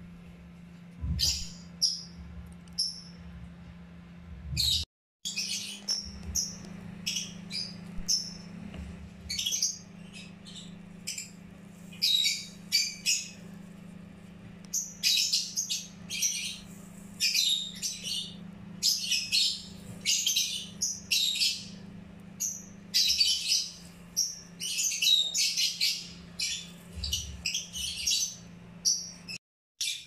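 Pet bird chirping in short, quick calls again and again, over a steady low hum. The sound drops out briefly about five seconds in.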